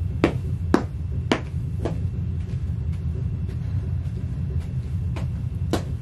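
Ugg sheepskin boots stomping on a clear plastic chair mat over carpet: a run of thuds, four strong ones in quick succession during the first two seconds, then fainter, more spaced steps. A steady low rumble runs underneath.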